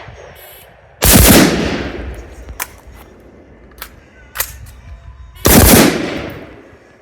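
Close gunfire from a handgun and carbine: two very loud reports about four and a half seconds apart, each ringing out for about a second, with a few sharper, quieter cracks between them.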